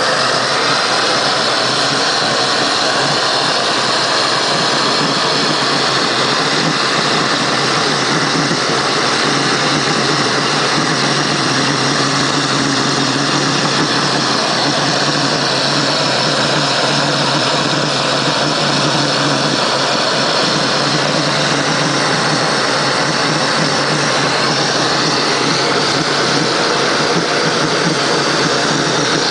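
Waste-oil jet burner furnace running: a loud, steady rushing noise with a low hum under it.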